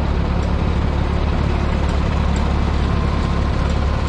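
Several vintage Minneapolis-Moline tractor engines running steadily at low speed, a deep, even engine rumble close by.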